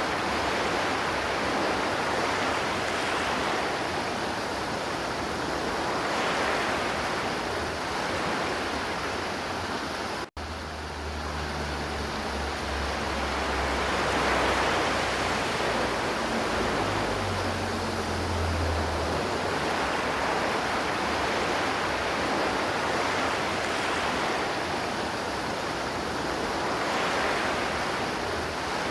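River water flowing in a steady rush that swells and eases slowly. About ten seconds in, the sound cuts out for an instant, and a low rumble sits under the water for several seconds after.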